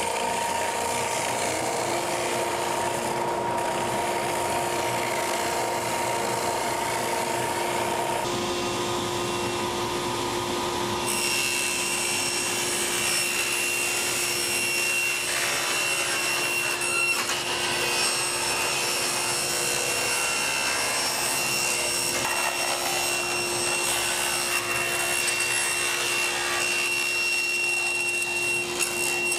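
Oscillating belt sander running with an 80-grit belt, smoothing the rounded corners of a 3/4-inch plywood panel. Partway through the sound changes to a table saw running and cutting a sheet of plastic laminate.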